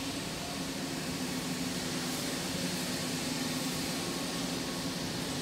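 Steady workshop background noise in a large factory hall: an even hiss with a low mechanical hum under it, no distinct events.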